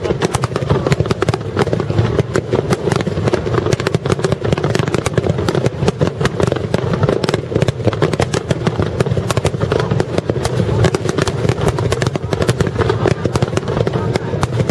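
Fireworks barrage: many aerial shells bursting in quick succession, a dense, unbroken rattle of bangs and crackle over a steady rumble.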